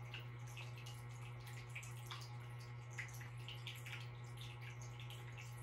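Faint trickling and dripping of a water fountain, as scattered irregular drips over a steady low hum.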